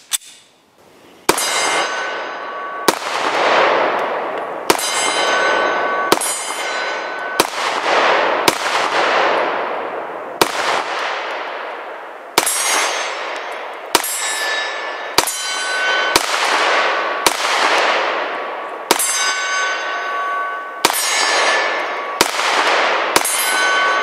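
Taurus PT909 9mm semi-automatic pistol fired in slow, single shots, about seventeen in twenty-odd seconds, one every one to two seconds, each crack trailing off in a long echo. A metallic ringing tone lingers after many of the shots.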